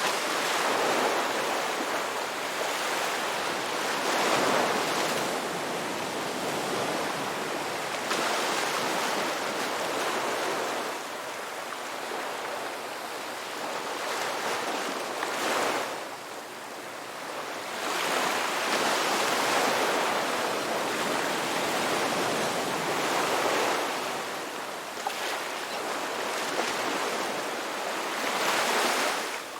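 Ocean waves breaking and washing up on the shore in a steady surge, swelling and easing every few seconds.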